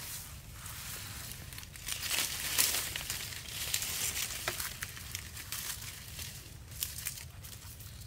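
Dry bamboo leaf litter rustling and crackling as hands rummage and pull at the forest floor, loudest about two seconds in, then a few scattered crisp snaps.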